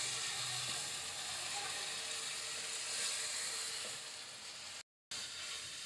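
Minced meat (keema) sizzling in a non-stick wok as it is stirred with a spatula and its remaining water cooks off. The sizzle drops out briefly about five seconds in.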